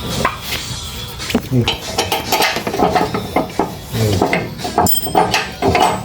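Metal hand tools and steel parts clinking and knocking irregularly as bolts and a bracket are fitted during a steering rack installation.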